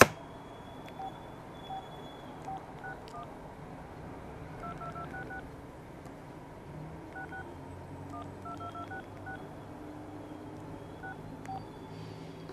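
Keypad tones of a Casio G'zOne Ravine flip phone as keys are pressed to type a web address: about twenty short two-note touch-tone beeps in quick runs. A sharp click at the very start.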